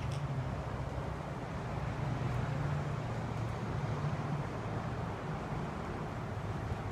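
Steady low hum over a constant background rush, with no distinct hoofbeats or other single events.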